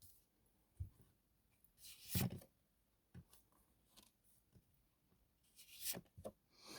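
Tarot cards being handled on a table: soft rustles, slides and faint clicks of the cards, with the loudest rustle about two seconds in and another near the end.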